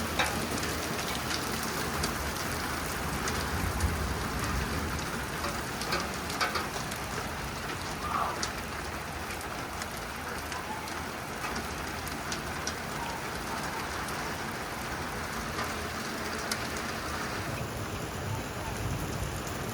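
Hail falling, a steady hiss of pelting ice with many sharp, scattered ticks of hailstones striking hard surfaces.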